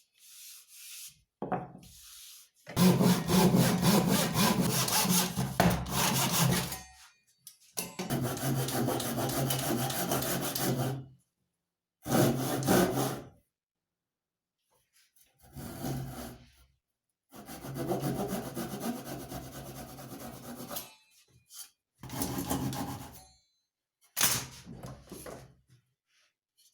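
Wood being sawn in about seven separate stretches of one to four seconds each, with sudden silent breaks between them.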